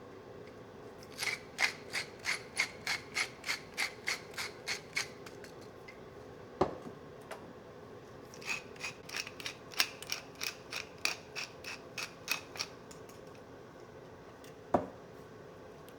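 A kitchen utensil making two runs of quick, even rasping strokes, about three a second, with a single knock between the runs and another sharp knock near the end.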